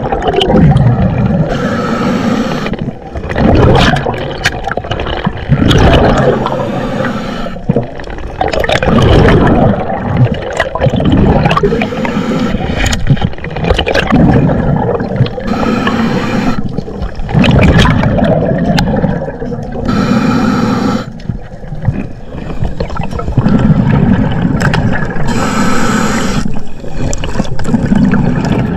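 Underwater noise picked up by a submerged camera as a diver swims near the seabed: bubbling and rushing water, with a brighter hiss returning every four or five seconds.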